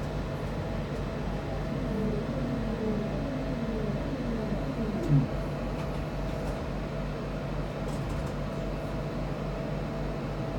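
Class 323 electric multiple unit's traction motors whining downward in pitch as the train brakes, ending with a short thump about five seconds in. A steady electrical hum from the train continues throughout.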